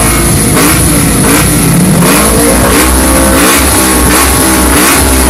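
250cc sportbike engines revved hard in quick, repeated throttle blips at a drag-race start line, the pitch rising and falling several times a second.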